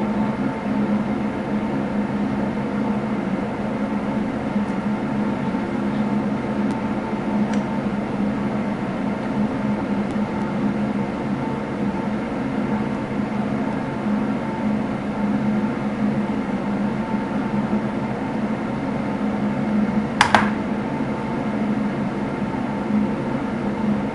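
A steady mechanical hum with several held tones, unchanging throughout, and one short sharp click about twenty seconds in.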